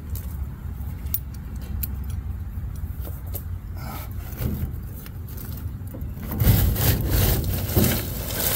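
Scattered metallic clicks and clinks of hand work on a car's underside over a steady low rumble. About six seconds in, a louder stretch of scraping and rattling follows as a part is handled or dragged.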